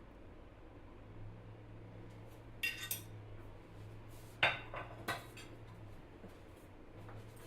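Metal kitchen utensils clinking against dishes or a pot: a few short, sharp clinks, the loudest about four and a half seconds in, over a steady low hum.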